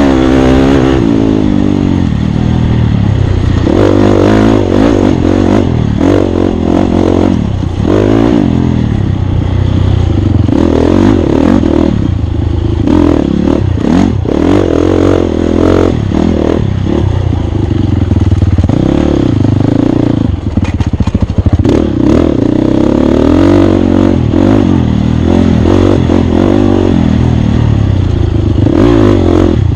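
Off-road racing dirt bike engine revving up and down over and over as it is ridden hard over rough ground, with clatter and scattered knocks from the bike over the terrain.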